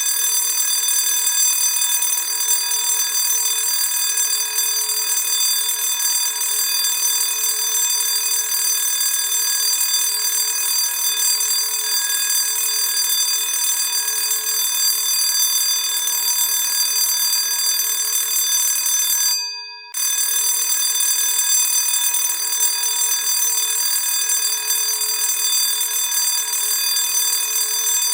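School bell ringing continuously with a steady, loud ring. About nineteen seconds in it stops, dies away for under a second, and starts again.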